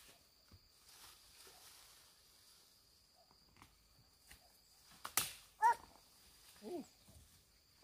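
A sharp click, then two short animal calls, the second falling in pitch.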